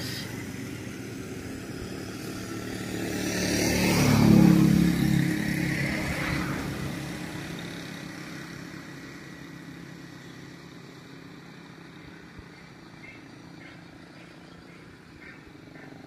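A motor vehicle passes by: it grows louder to a peak about four seconds in, then fades away slowly over the following several seconds.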